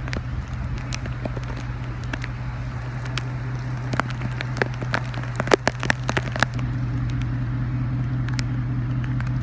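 Hurricane rain and wind, with raindrops crackling and clicking on the microphone, thickest in the middle, over a steady low hum.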